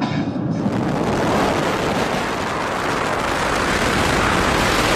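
Steady, loud rush of wind and road noise from a car driving at highway speed, starting abruptly about half a second in.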